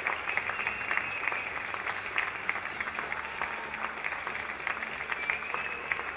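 Crowd applauding, many hands clapping in a dense, continuous patter.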